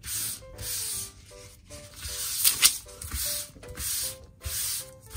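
Folded paper towel rubbed over a sheet of cooking parchment, spreading olive oil: repeated swishing strokes, about one a second, with a louder pair of strokes about halfway through.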